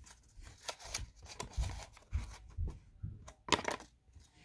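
Paper origami frog being pressed and set hopping on a desk: a run of light paper taps and rustles, with a louder crinkly paper rustle about three and a half seconds in.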